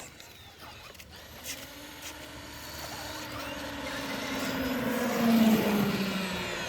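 A vehicle drives up and past. Its steady hum and tyre noise grow louder to a peak about five seconds in, and the hum's pitch sinks slightly as it goes by.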